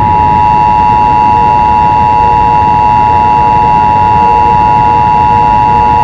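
Emergency Alert System attention signal: a steady, loud two-tone alarm (853 Hz and 960 Hz sounded together) over a rough noise, the tone that warns an emergency alert message is about to follow.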